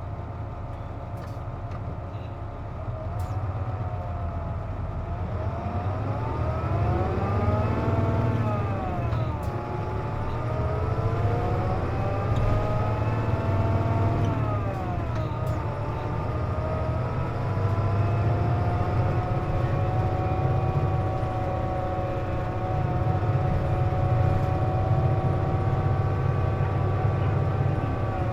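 Hino KC-JP250NTN city bus heard from inside, pulling away: a whine made of several tones rises and falls back twice, then holds steady over the low engine rumble. This whine is the odd noise that the uploader links to the bus's air conditioning being on.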